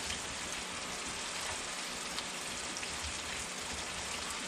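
Hot cooking oil sizzling steadily, an even continuous hiss, with a few faint ticks.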